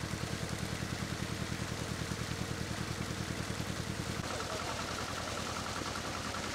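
Engine-driven irrigation pump running with a steady low beat of about ten pulses a second, over the rush of water pouring from its wide outlet pipe into a lined pond. About four seconds in, the engine beat fades and the rushing water carries on with a faint high whine.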